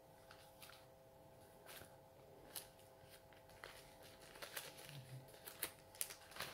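Near silence: a faint steady hum with scattered soft clicks and rustles, coming more often in the second half.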